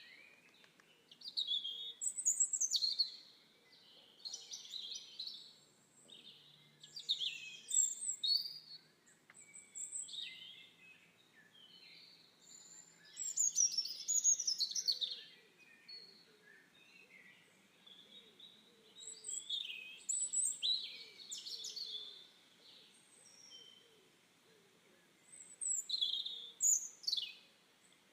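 Songbirds singing: clusters of high, quick chirps and down-slurred whistles come every few seconds over a faint steady background hiss.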